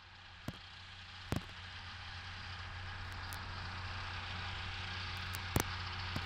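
Engine idling steadily, with a low hum that slowly grows louder and a few sharp clicks, the loudest about a second and a half in and near the end.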